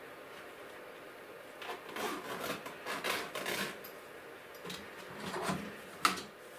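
Rustling and scraping as a kit is handled and fitted into an open aluminium case, in two stretches about two and five seconds in. A sharp knock comes just before the end as it is pressed into place.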